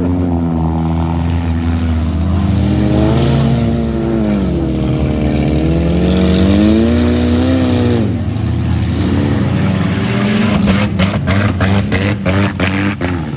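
Derby car engine revving up and down, its pitch rising and falling several times. Near the end comes a quick run of sharp knocks and cracks.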